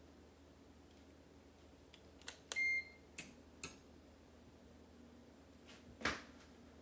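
A ceiling fan's remote-control receiver gives one short electronic beep a little under three seconds in, acknowledging a remote command. A few sharp clicks fall around it over a faint steady hum.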